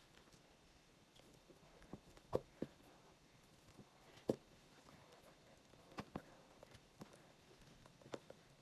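Faint, scattered small clicks and ticks of hand sewing: a needle and thread being worked through fabric and the holes of a press stud, about eight soft clicks over a quiet background.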